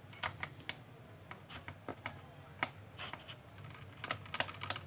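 Screwdriver backing out small screws from the plastic handle of a handheld metal detector: a string of irregular light clicks and taps, some in quick clusters.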